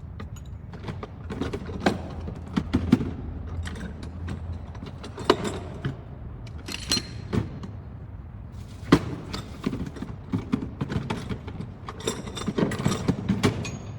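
Metal hand tools being handled, an irregular series of sharp clinks, knocks and rattles. The sounds come thickest near the end.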